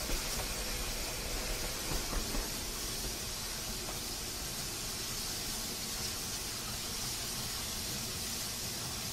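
A steady hissing noise over a low rumble, with a few small bumps in the first couple of seconds.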